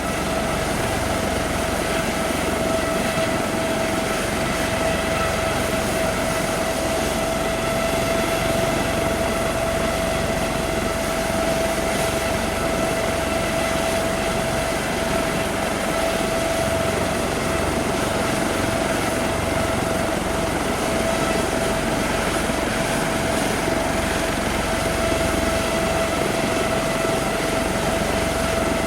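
Helicopter running steadily, a constant high whine over engine noise.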